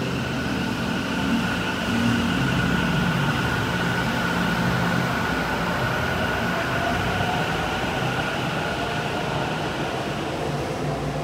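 Taichung MRT train running on the line: a steady rumble with a faint high whine, easing off slightly near the end.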